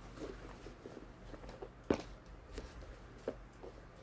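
Faint rustling and light knocks of a pair of Converse high-top sneakers being handled and set down, with one sharper tap about two seconds in and a lighter one a little past three seconds.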